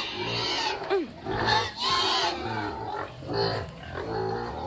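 Pigs calling in a string of short grunts and squeals, one after another, some high and noisy.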